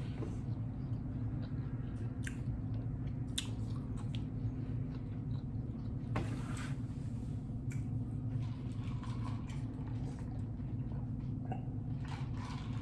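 A person chewing and eating, with scattered short mouth clicks, over a steady low hum.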